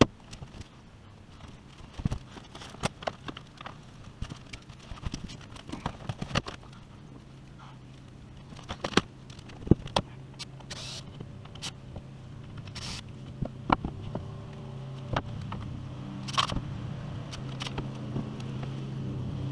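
Scattered sharp clicks and knocks, with a low steady motor hum that comes in about seven seconds in and grows louder toward the end.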